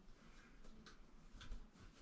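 Near silence with a few faint, short clicks and taps as parts are handled inside an air handler cabinet.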